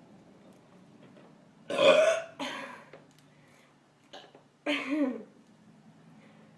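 A woman burping loudly: two burps in quick succession about two seconds in, then a short one and another drawn-out, voiced burp near five seconds.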